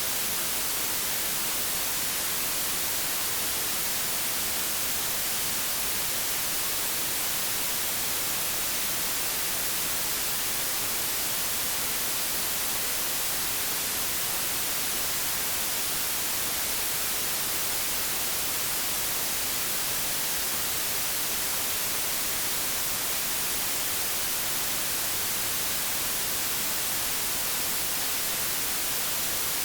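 Generated white noise: a steady, even hiss that never changes, strongest in the high range.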